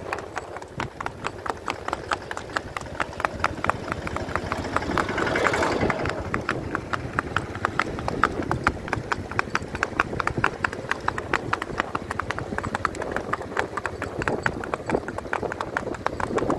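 Kathiyawadi horse's hooves clip-clopping on a paved road in a quick, even rhythm as it is ridden.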